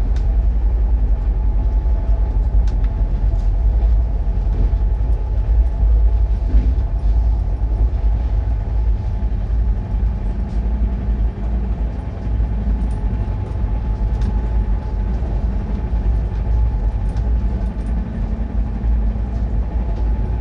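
Moving passenger train heard from inside an AC coach: a steady low rumble with scattered faint clicks and rattles.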